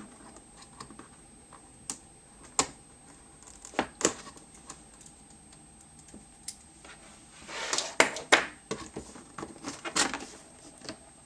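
Cardboard product box being opened and handled: scattered sharp taps and clicks of cardboard and packaging, with a denser flurry of scraping and tapping about eight seconds in.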